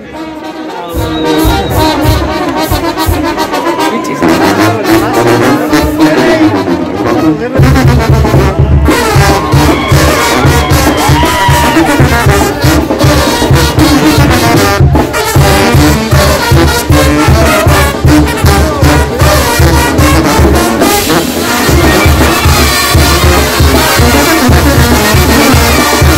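Oaxacan street brass band playing live: sousaphones, trumpets and clarinets. The music is thinner at first; about seven seconds in the full band comes in with a steady, pulsing bass beat.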